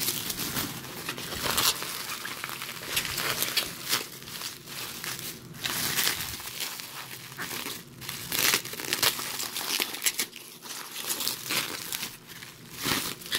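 Plastic bubble wrap crinkling and rustling as hands pull and handle it, with many sharp crackles.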